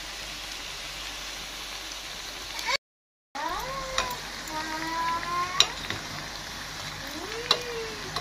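Gram-flour pakoras deep-frying in a steel pan of hot oil, a steady sizzle, with a few sharp clicks of metal tongs against the pan as they are turned. The sound cuts out briefly about three seconds in.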